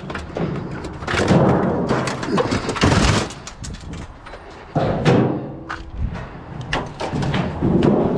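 Steel washing-machine frame and sheet-metal cabinet panels being handled and set down: several thuds and clanks a second or two apart, one with a short metallic ring.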